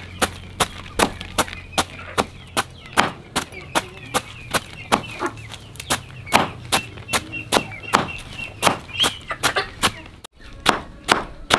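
A heavy cleaver chopping fresh banana stem into shreds against a tarp-covered concrete floor: sharp, quick chops at about two to three a second, with a brief break about ten seconds in.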